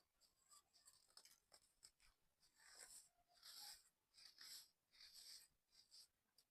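Faint gritty crackling of a sand tower crumbling: a run of short crunches and rustles, the louder clusters in the second half.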